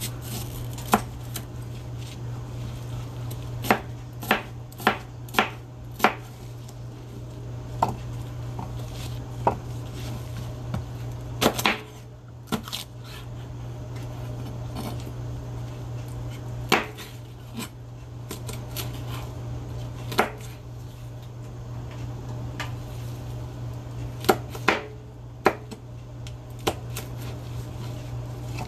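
Chef's knife slicing sweet peppers on a plastic cutting board: irregular sharp knocks of the blade striking the board, sometimes a quick run of three or four, sometimes with pauses of a few seconds between cuts.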